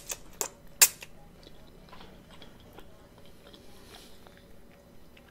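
Mouth sounds of someone eating neckbone meat: a few sharp, wet smacks and clicks in the first second, then softer chewing.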